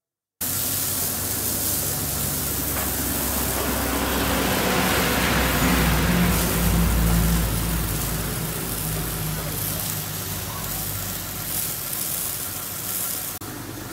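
Truck engine running, growing louder to a peak about six seconds in and then easing off.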